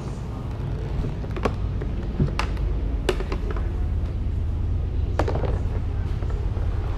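A few sharp clicks and knocks of parts and tools being handled while working on a car door, over a steady low hum.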